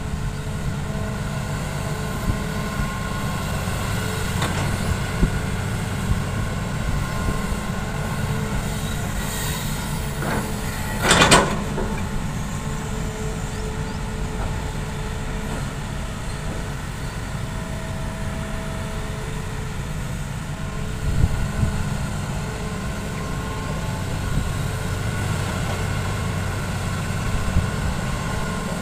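Hitachi hydraulic excavator running steadily as it digs and loads soil, a low engine hum with a few held tones that come and go. A loud metallic clank about eleven seconds in, and a smaller knock later.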